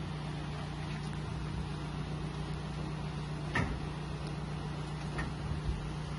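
Steady low mechanical hum, with a few short knocks from a machine being lifted into the back of a van; the loudest knock comes about halfway through.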